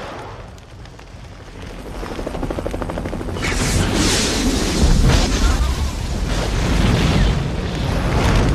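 Action-film sound effects: a helicopter's rotor chop growing louder, then a heavy, deep booming rumble of an explosion and fire that carries on.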